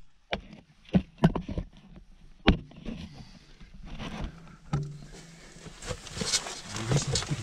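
Wooden knocks and creaks of an old log attic as someone moves about in it: a handful of sharp single knocks spread out, a short low creak about halfway through, and rustling of movement near the end.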